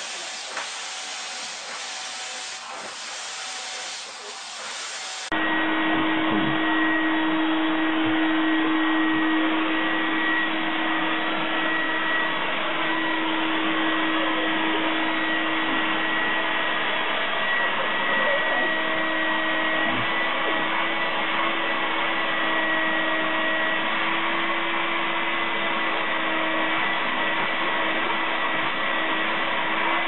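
A steady hissing noise, then about five seconds in an abrupt cut to a louder vacuum cleaner running steadily, its motor giving a constant whine.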